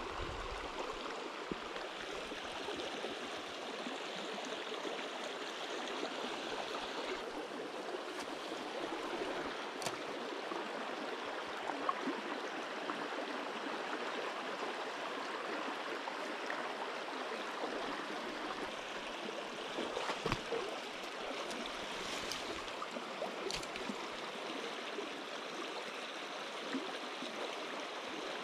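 River current rushing steadily over shallow riffles and rocks, with a few brief light clicks.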